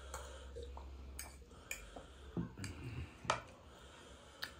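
Quiet eating sounds: scattered short clicks and wet smacks of mouths chewing and drinking, and a fork working noodles on a plate.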